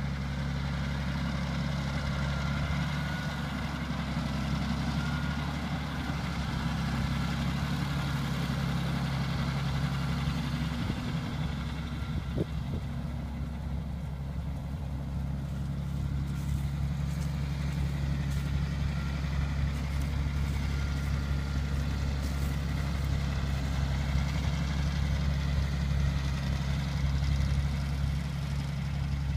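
2006 Challenger MT665B tractor's 8.4-litre turbocharged six-cylinder Sisu diesel engine running steadily as the tractor drives.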